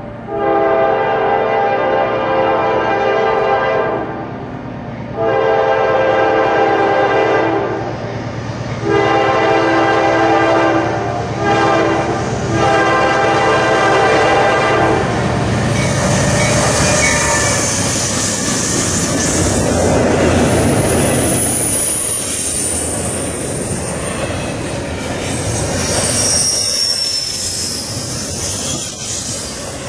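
Two Norfolk Southern GE C44-9W diesel locomotives sound their air horn in four blasts, the third shorter (long, long, short, long), the grade-crossing warning. The locomotives then pass, followed by double-stack container cars rolling by with wheel clatter and high-pitched wheel squeal.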